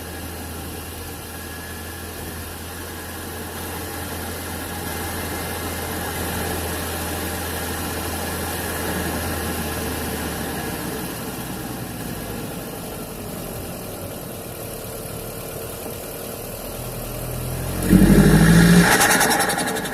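Seat Ibiza Cupra's 1.8-litre turbocharged four-cylinder heard from inside the airbox, idling steadily. About 18 s in, a sharp throttle blip makes the intake rush loudly as the revs climb. It ends in a quick, even fluttering as the throttle shuts, which is turbo compressor flutter.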